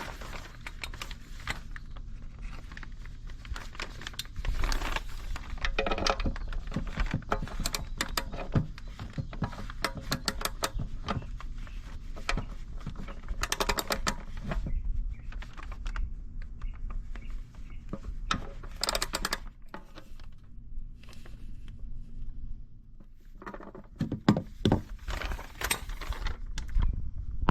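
Metal hand tools clinking and rattling in a scattered series of sharp clicks and short rattles, over a low steady hum.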